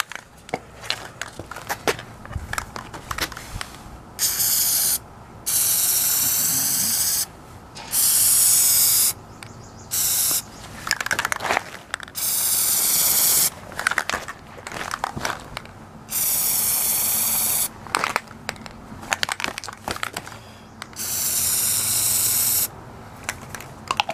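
Aerosol can of Plasti Dip rubber coating spraying in seven short hissing bursts of one to two seconds each, with small clicks and rustles between them.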